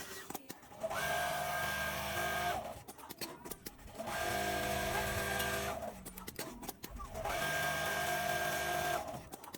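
Industrial sewing machine stitching quilting in three runs of about two seconds each, a steady whine over a low hum, with clicks and rattles in the short pauses between runs.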